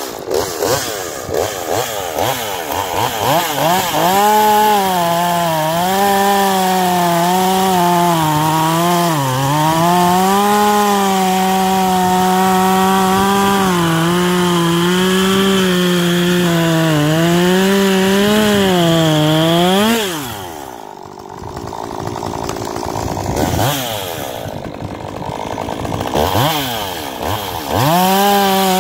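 Stihl MS201t two-stroke top-handle chainsaw cutting through a walnut log at full throttle, its pitch sagging and recovering as the chain loads in the cut. About twenty seconds in the engine drops back toward idle and is blipped twice, then goes back to full throttle near the end.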